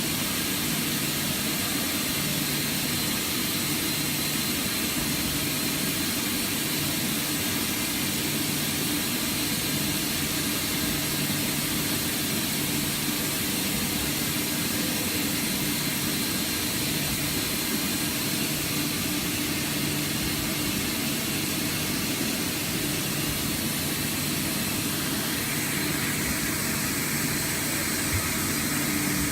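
Mazak Integrex 300-IV ST CNC turning center running: a steady machine hum and whir with a faint high whine. The higher part of the whir grows louder about 25 seconds in.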